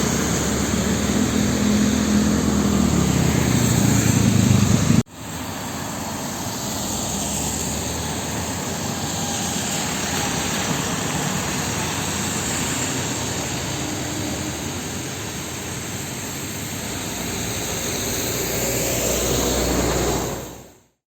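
A heavy truck's diesel engine passing close, its pitch rising and then falling, cut off abruptly about five seconds in. A steady hiss of heavy rain and wet road traffic with a faint engine hum follows and fades out near the end.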